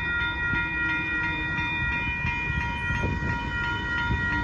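Amtrak Texas Eagle passenger train running past with a dense low rumble, over a steady chord of high tones that holds unbroken throughout.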